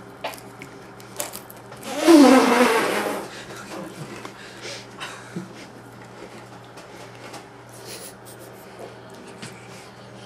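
Faint crunching and chewing of dry saltine crackers, broken about two seconds in by one loud, second-long vocal sound from a person.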